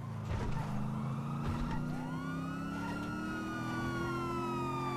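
Video-game police car siren wailing, gliding up in pitch about two seconds in and then slowly falling, over the steady hum of a car engine.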